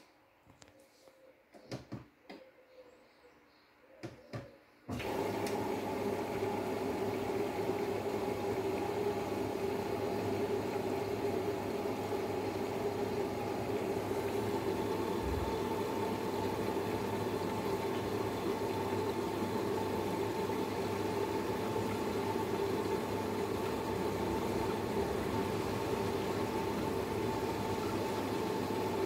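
Front-loading washing machine taking in water: after a few small clicks, water starts rushing into the drum suddenly about five seconds in and runs on steadily with a faint hum. It is the machine's automatic mid-wash water top-up.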